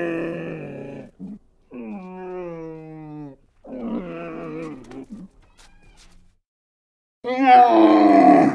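An animal calling: a series of drawn-out, pitched vocal calls, each lasting a second or more, with short pauses between them. The loudest call comes near the end.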